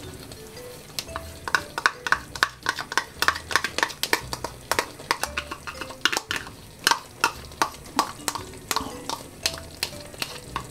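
Spoon scraping and tapping against a small bowl as ketchup is worked out of it into a cooking pot: a run of irregular clicks and scrapes, about two or three a second.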